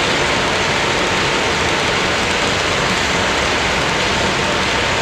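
HO scale coal hopper cars rolling by on model track, a steady rushing noise of many small wheels on the rails.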